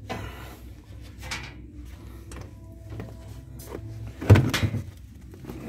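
Scattered light clicks and rustling, with one loud thump about four seconds in, followed by a couple of smaller knocks.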